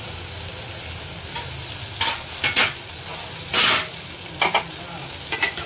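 A metal spoon scrapes and stirs diced pumpkin in a steel kadhai: several short, sharp scrapes against the pan over a low, steady sizzle of the pumpkin cooking on a low flame.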